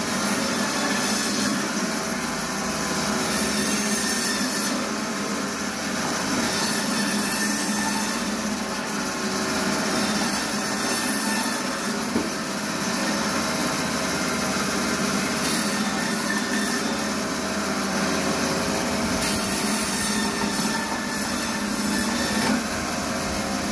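Ton Öz 120 meat and bone band saw running steadily, its blade cutting through bone-in meat. The cut gets harsher and higher every few seconds as each piece is pushed through the blade.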